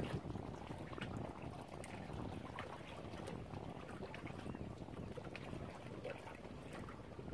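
Small lake waves lapping and splashing irregularly against the shore, with wind rumbling on the microphone.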